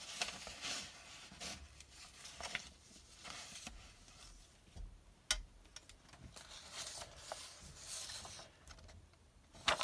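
Paper sheets being handled, rustling and scraping in irregular bursts on a wooden tabletop, with one sharp click about five seconds in.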